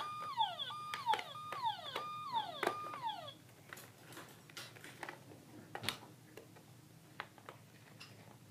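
Toy Ecto-1's electronic siren going off: a repeating tone that holds and then falls, about two a second, stopping a little over three seconds in. Faint clicks and taps follow.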